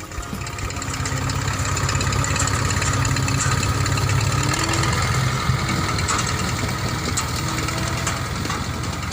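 A motor vehicle's engine running steadily, getting louder over the first second and then holding level.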